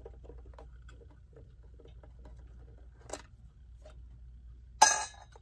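Light clicks and scrapes of the hand-set knob on the back of a metal-cased New Haven clock being turned by hand, with one sharp knock near the end.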